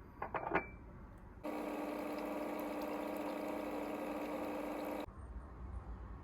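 A few quick clicks, then a small electric motor runs with a steady hum for about three and a half seconds, starting and stopping abruptly.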